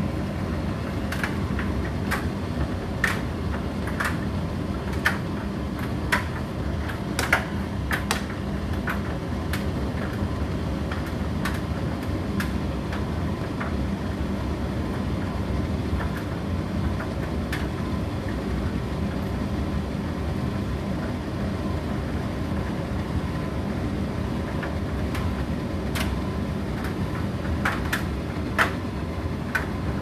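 Indesit IDC8T3 condenser tumble dryer running with its door open: a steady motor and drum rumble with a low hum as the clothes tumble. Irregular sharp clicks come through, several in the first few seconds and again near the end.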